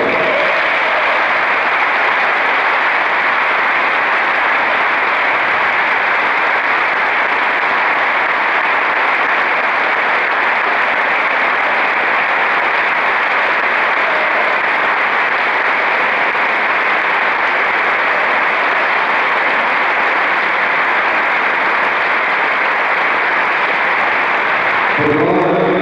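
Large arena crowd applauding in a long ovation: steady, unbroken clapping.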